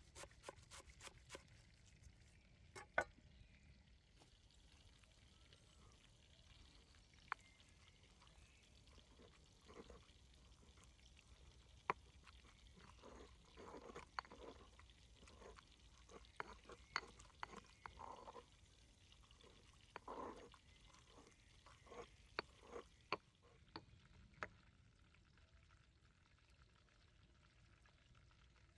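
Large kitchen knife chopping herbs on a wooden board, a quick run of cuts at the start and a few single knocks after. Then soft, wet squelching comes in bursts as hands work chopped herbs into a soft white paste in a stone mortar bowl. The sounds are faint throughout.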